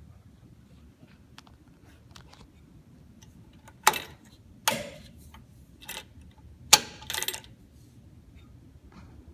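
Sharp clicks of dashboard toggle switches and flip-up switch covers being worked by hand, about five in a few seconds, the last a short rattle.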